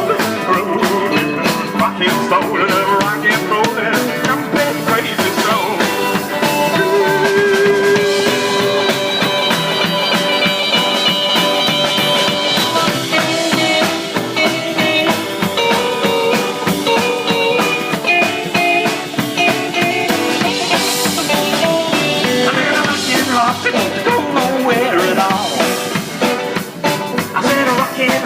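Live rock and roll band playing an instrumental stretch of the song, with a steady drum beat under sustained instrumental lines.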